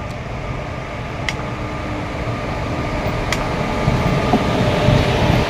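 Steady hum and whir of an electric locomotive's cooling blowers and machinery, growing louder toward the end as the body-side louvres come close.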